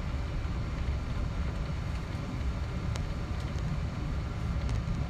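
Cabin noise of a Boeing 777-200ER taxiing: a steady low rumble from the jet engines at taxi power and the airframe rolling on the taxiway, with a few faint clicks.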